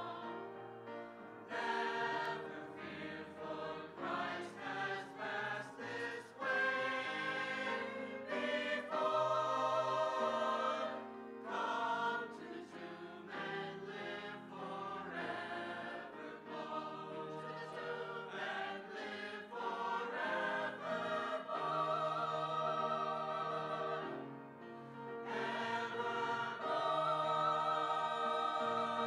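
Mixed choir of men's and women's voices singing, with short breaks between phrases about eleven and twenty-four seconds in.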